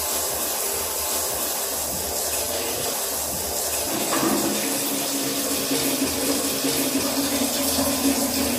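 Water running from a hand-held shower hose into a plastic basin, a steady splashing pour that grows a little louder and fuller about four seconds in.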